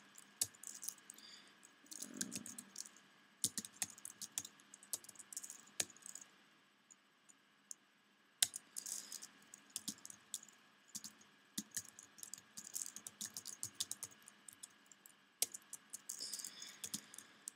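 Typing on a computer keyboard: irregular runs of quick keystrokes, with a pause of about two seconds near the middle.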